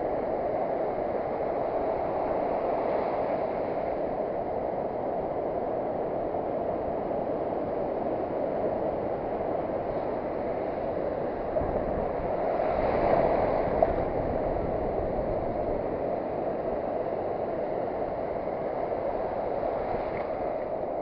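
Surf washing steadily onto a sandy beach, with one wave swelling louder about two thirds of the way through.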